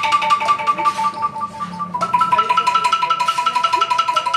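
Background music: a fast run of evenly repeated high notes, the pair of pitches stepping up about two seconds in.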